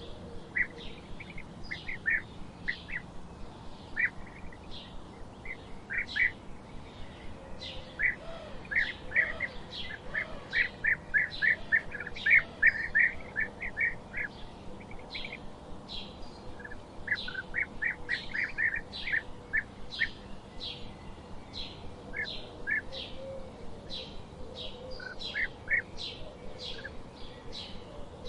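Several small birds chirping, short repeated chirps in quick runs that are busiest in the middle, over a faint forest background hiss.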